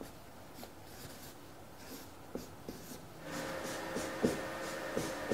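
Felt-tip marker writing on flip-chart paper in short separate strokes as letters are drawn. A faint steady hum with a few held tones comes in about three seconds in.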